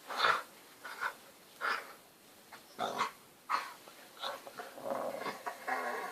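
Labrador puppy vocalising during play-wrestling: a string of short play-growls and grunts, about one a second, then a longer drawn-out grumble near the end.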